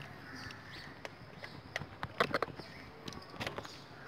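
Irregular light metallic clicks and taps of a socket wrench working on the bolts of a motorcycle engine's oil filter cover, a few at a time, with a small cluster about halfway through.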